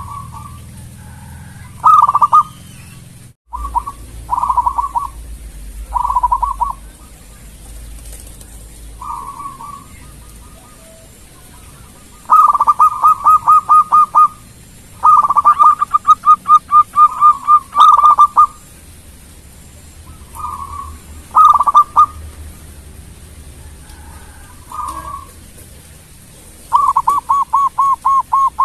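Zebra dove (perkutut) singing: repeated phrases of rapid staccato cooing notes at about five notes a second. The longest phrases last two to three seconds, with shorter phrases between them.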